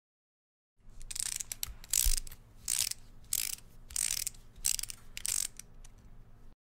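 Paintbrush bristles stroking across textured canvas, a run of scratchy swishes about one every two-thirds of a second, starting about a second in.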